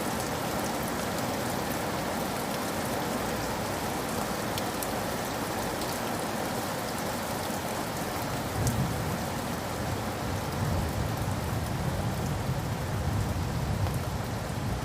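Steady rain falling on a roof, with scattered single drop ticks. About two-thirds of the way in, a low rumble of distant thunder comes in and runs on, swelling a little near the end.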